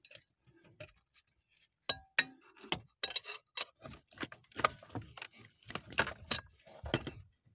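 Irregular metallic clinks and knocks of hand tools and steering-column parts being handled and worked loose under a car's dashboard, starting about two seconds in.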